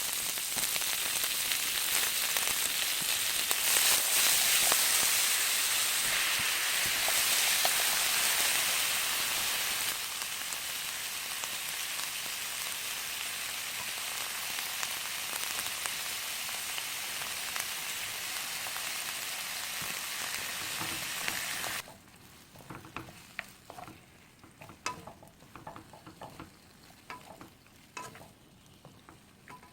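Sausages and vegetables sizzling as they are stir-fried in a pan. About two-thirds of the way through the sizzling cuts off abruptly, leaving scattered light clicks and scrapes of a utensil against the pan.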